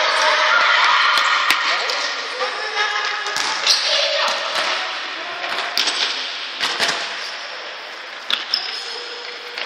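Children calling and shouting during an indoor futsal game, with the ball kicked and bouncing on the court in sharp knocks several times. The voices are loudest in the first few seconds.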